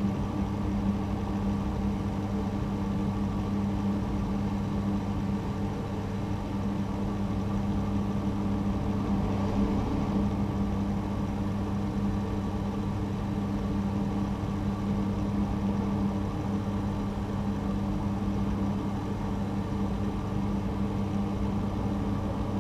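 Ventilation system running steadily: a constant mechanical hum with a strong low drone and faint higher tones over an airy rush.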